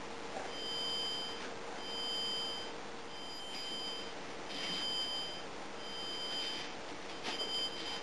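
Laptop anti-theft alarm (SonoGuard) beeping: a repeated high two-toned beep, each about a second long, coming roughly every second and a quarter.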